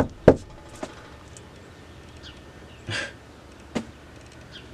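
A fist knocking on a front door: two quick, loud knocks at the start, then a fainter tap. A brief soft noise comes about three seconds in.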